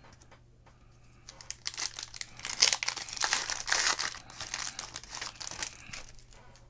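Foil wrapper of a trading-card pack being torn open and crinkled by hand. The crinkling starts about a second in, is loudest in the middle, and dies down near the end.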